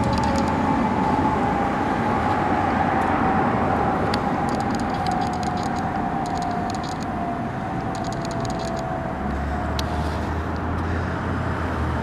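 Road traffic with a fire engine's siren holding one tone that slowly falls in pitch and fades. A few light clicks come in the middle, and a low engine rumble comes up near the end.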